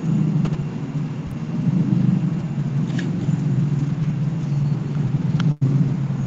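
Steady low background rumble, with a few faint clicks; it cuts out for an instant near the end.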